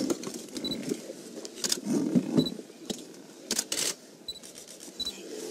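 A short, low animal call about two seconds in from a lion and a Cape buffalo fighting at close quarters. Sharp camera-shutter clicks are scattered through the sound.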